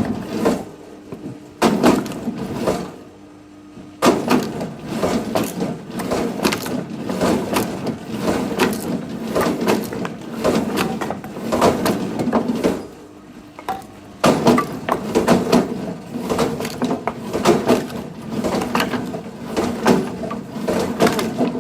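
Firewood being worked: repeated wooden knocks, cracks and clatter of logs and split pieces, coming in two long busy runs with a short lull between them.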